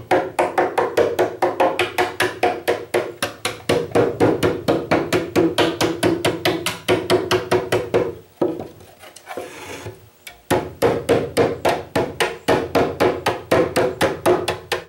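Hammer beating the excess wire mesh down onto the back of a wooden box, a fast even run of strikes, about five a second, each one ringing in the box. The strikes stop about eight seconds in and start again some two seconds later.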